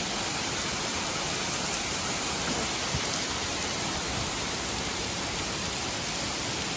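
Heavy rain pouring down hard in a steady, even downpour.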